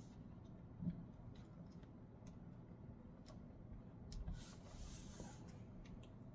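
Faint scattered light clicks and soft rubbing from small laptop parts being handled and pressed into place, with a slightly louder knock about a second in.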